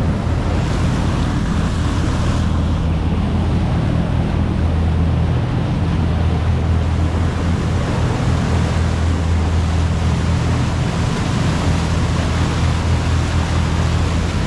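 A tour boat's engine running with a steady low drone, over a constant rush of water and wind.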